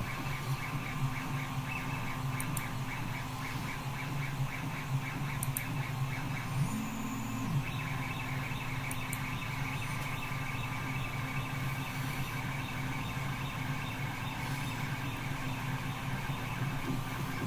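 Steady machine hum with a pulsing whir of about three beats a second, and a few faint clicks.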